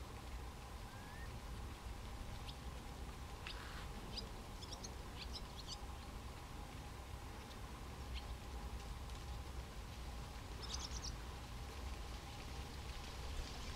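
Small birds chirping in short scattered calls now and then, over a faint steady low rumble and a thin steady hum.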